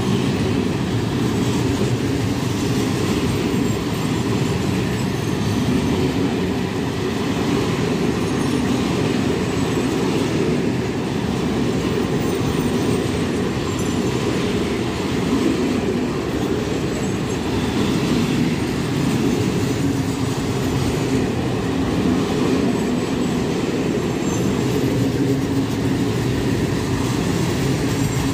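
Freight train of open coal wagons rolling past close by: a loud, steady rumble of steel wheels on the rails.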